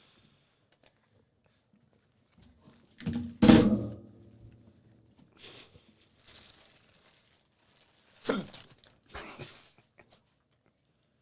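Burger eating close to the microphones: scattered chewing and handling noises, with a loud thump about three and a half seconds in and shorter knocks near eight and nine seconds.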